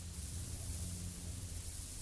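Aprilia Shiver 750's V-twin engine idling steadily, a low even rumble under a constant hiss.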